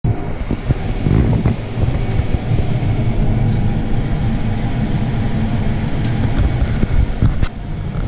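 Combine harvester running while cutting soybeans: a steady, loud low drone of engine and machinery, with a few sharp clicks, heard from inside the cab.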